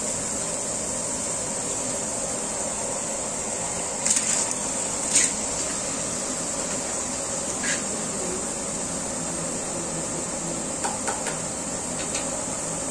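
Steady cooking hiss under a large aluminium pot of onions and curry leaves. A few short splashes and sizzles come as handfuls of wet raw mutton are dropped into it, the loudest about four and five seconds in and another near eight seconds.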